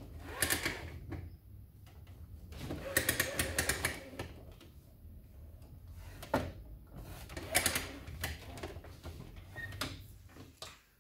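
Workshop handwork noise: four short bursts of rapid clicking and scraping, a few seconds apart.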